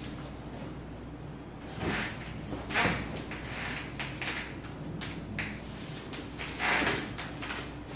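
Handling noises from a leg stretch on a padded massage table: several brief rustles and light knocks as the client's leg and body shift on the table and the gloved hands grip and press, the loudest about two, three and seven seconds in.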